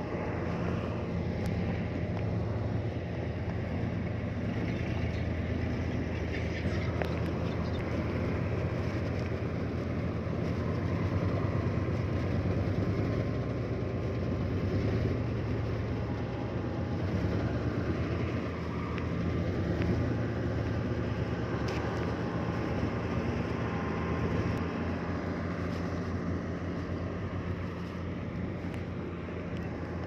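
Heavy diesel engine of earthmoving machinery running steadily, with a few faint scattered clanks; it drops off a little in the last few seconds.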